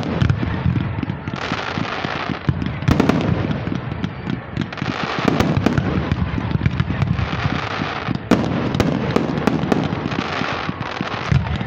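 Fireworks display going off without pause: a dense crackle of many small pops, with hissing from ground fountains in waves every couple of seconds and a number of sharper bangs.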